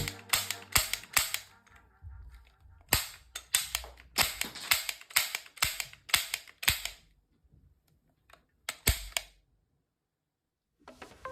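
Sharp clicks from a toy revolver's mechanism as it is handled, in an irregular string with a dense run in the middle and two last clicks after a pause.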